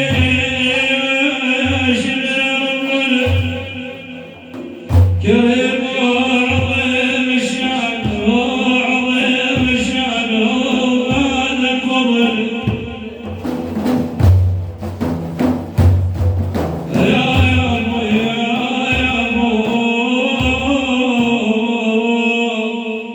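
Madih, chanted religious praise singing for the Prophet, with steady drum strokes beneath the voice. About two-thirds of the way through the singing breaks off for a few seconds, leaving only the drum, then comes back.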